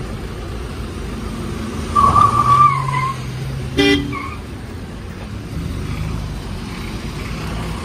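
Road traffic going by, with a vehicle horn sounding for about a second about two seconds in and a second short toot near four seconds.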